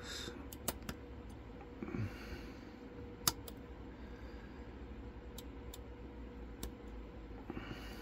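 Lock pick working the pins inside an ABS Avocet cylinder lock: a handful of small, sharp metallic clicks scattered irregularly, the loudest about three seconds in. A soft breath sounds about two seconds in, over a faint steady hum.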